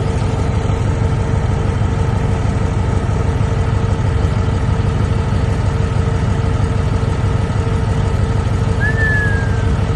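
Bulldozer's diesel engine running steadily, a low engine sound with a constant hum. About nine seconds in, a brief high whistle falls in pitch.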